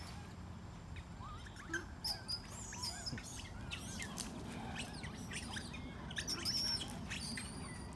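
Songbirds chirping and calling: many quick, high chirps and whistles overlapping from about a second in, over a low steady background rumble.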